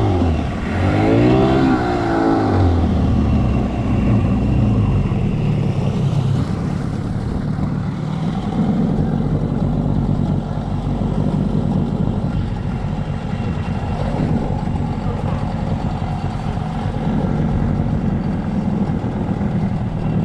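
Jet ski engine revving, its pitch rising and falling over the first few seconds, then settling into a steady drone as it runs on.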